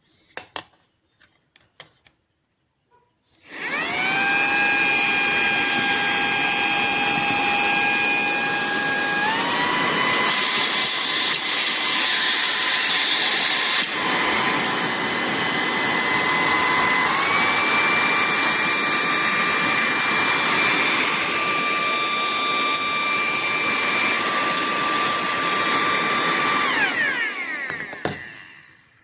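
A few faint clicks, then a cordless handheld vacuum cleaner's motor switches on and spins up to a steady whine. It steps up in speed twice, about a third and two-thirds of the way in, as the power setting is raised, then winds down and stops near the end.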